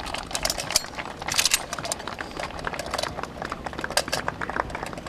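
Many irregular, overlapping metallic clicks and clacks as a row of bipod-mounted light machine guns are handled and assembled by hand.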